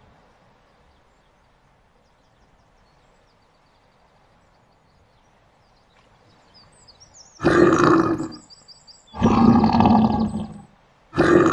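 Several seconds of quiet, then three loud lion roars of about a second each, played back rather than from a live animal, with faint high chirps between the first two.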